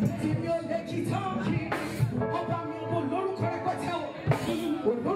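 Live gospel band music amplified in a hall: a woman's lead vocal over keyboard, with sharp drum hits.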